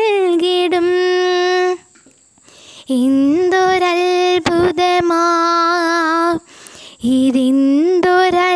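A girl singing a Malayalam Christian devotional song unaccompanied, holding long sustained notes. The singing breaks off briefly about two seconds in and again past six seconds, then resumes.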